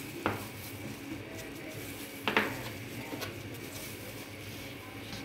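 Kitchen knife knocking against a bamboo cutting board while cutting a sheet of potato mixture into strips: a sharp knock about a quarter second in, a louder double knock a little past two seconds, and a few lighter taps.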